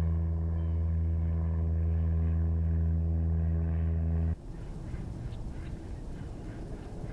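Small electric motor humming steadily, cutting off suddenly about four seconds in. After it stops, only a faint low noise with a few light clicks remains.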